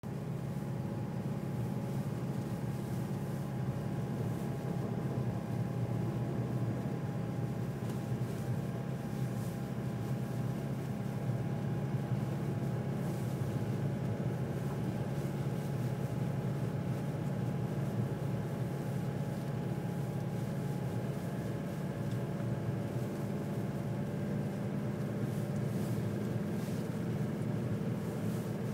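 Car running along a snowy road, heard inside the cabin: a steady low engine and tyre rumble with a faint steady whine above it.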